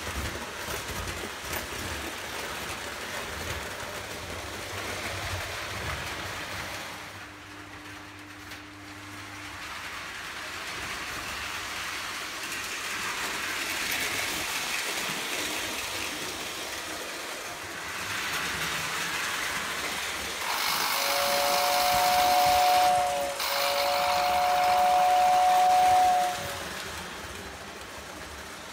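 Lionel O gauge toy train running on three-rail tinplate track, a steady rolling rumble and hiss. Near the end its tender whistle blows two long, steady two-note blasts with a short break between.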